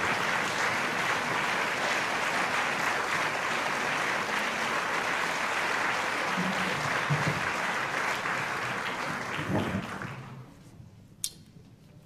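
Audience applauding, the clapping dying away about ten seconds in. A single sharp click follows near the end.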